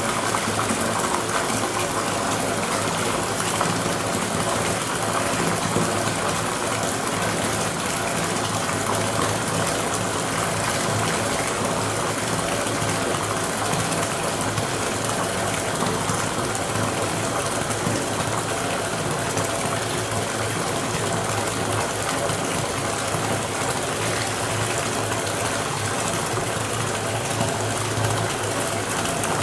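Water running steadily from a tap into a filling bathtub, a constant rushing gush with a low hum beneath it.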